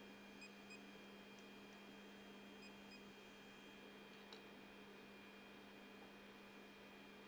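Near silence: a faint steady hum, with two pairs of faint short beeps and a couple of faint clicks.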